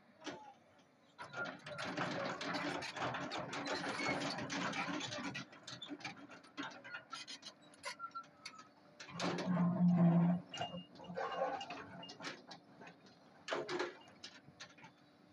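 Doosan DX225 hydraulic excavator digging into loose rock: the steel bucket scrapes through stone, and rocks clatter and knock irregularly over a low engine hum. The hum swells heavily for about a second, roughly two-thirds of the way through, as the machine takes load.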